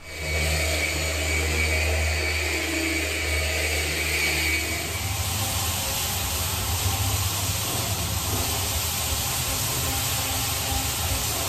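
Single-disc rotary floor sanding machine running on an oak parquet floor: a steady motor drone with a grinding hiss from the disc on the wood. About halfway through, the low hum turns rough and uneven.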